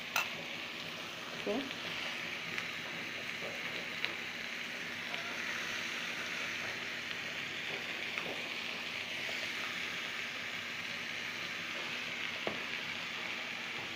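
Chicken pieces and sliced onions frying in a pan on the stove: a steady sizzle, with now and then a faint tick.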